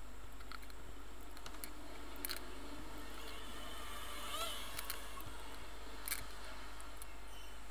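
Plastic parts of a partly dismantled Canon PowerShot SX100 IS compact camera being handled and pried at: a few light clicks, with a short squeak of flexing plastic about halfway through.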